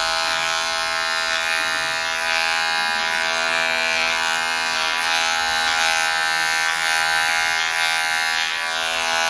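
Corded electric hair clippers running with a steady buzz as they are run up through short hair on the side of the head.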